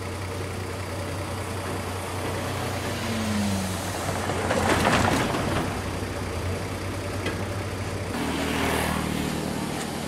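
Heavy truck's diesel engine idling steadily. About halfway through, a loud rushing whoosh lasts about a second. Near the end a different engine hum takes over.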